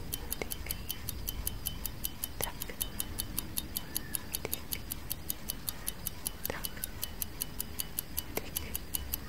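Clock tick-tock sound effect: fast, perfectly even ticking, several ticks a second, with a softer, lower click about every two seconds.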